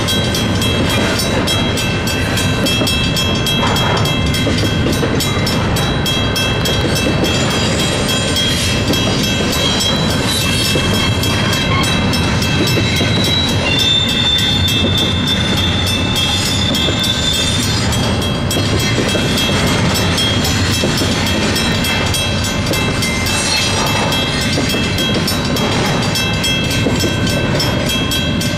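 Double-stack intermodal freight train rolling steadily through a grade crossing, its cars' steel wheels running on the rails. Over it, the crossing's WCH mechanical bell rings on without a break.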